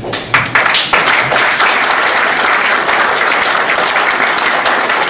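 An indoor audience clapping steadily after a speech. A few separate claps come first, and within about half a second it fills out into full, even applause.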